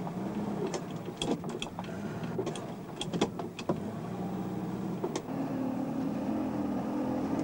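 Car engine running under way, its pitch rising and falling several times as it revs through the gears, then holding steadier near the end. Several sharp clicks and knocks come in the first few seconds.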